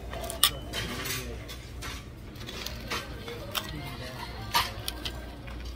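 Metal fork clinking against a dinner plate a few times, sharpest about half a second in and again near the end, over a low hum and faint background voices.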